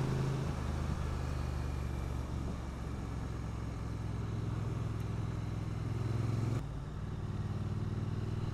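Triumph Street Twin 900's parallel-twin engine running steadily under way, heard from the rider's position. Its sound drops abruptly about six and a half seconds in, then carries on steadily.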